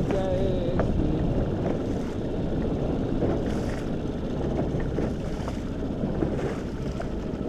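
Small inflatable boat under way at slow trolling speed: steady wind on the microphone over the rush of water along the hull and the low running of its outboard motor.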